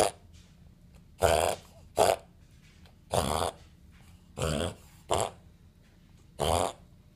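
A puppy reverse sneezing: a run of loud snorting breaths, about one every second, each cut short, with a quiet gap between them.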